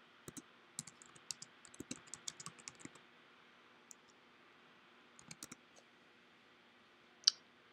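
Typing on a computer keyboard: a quick run of keystrokes over the first three seconds, a few more about five seconds in, and one louder click near the end.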